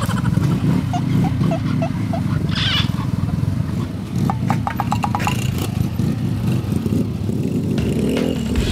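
Several small motorcycle engines running together with a fast, rough pulse, one revving up slightly near the end. A few short high chirps sound in the first two seconds.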